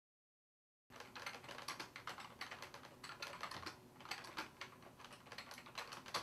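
Fast typing on a computer keyboard: rapid key clicks in uneven bursts, starting about a second in after dead silence.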